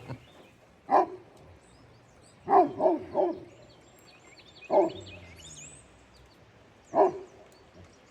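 Dog barking: single barks, then a quick run of three, then two more single barks.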